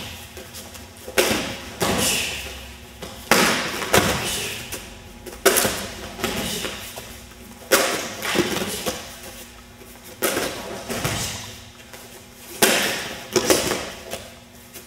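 A body dropping and landing on vinyl-covered gym mats again and again: about eight sharp thuds and slaps at irregular gaps of one to two seconds.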